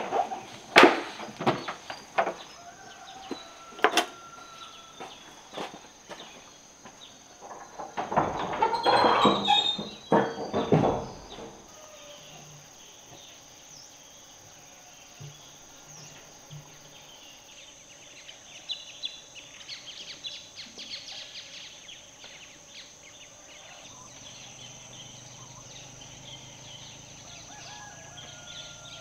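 Handling of a large aluminium cooking pot: several sharp knocks and clanks, then a rushing, scraping clatter for a few seconds. After that comes quieter rural ambience with scattered bird chirps over a steady high insect drone.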